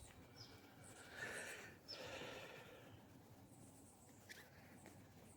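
Near silence: faint outdoor background, with a couple of brief, faint high chirps.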